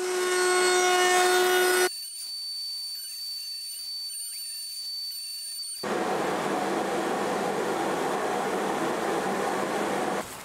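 Router table running with a roundover bit. A steady pitched hum for about two seconds gives way to a quieter high whine, then from about six seconds a louder rushing sound as the walnut tenon stock is fed past the bit to round over its edges.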